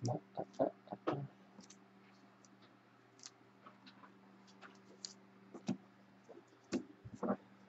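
Trading cards being handled and sorted: a few quick clicks of card stock in the first second, then scattered faint single ticks over a low steady hum.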